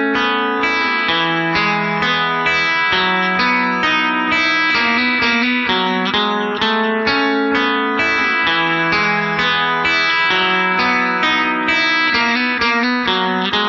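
Background music: a guitar picking a steady, continuous run of notes.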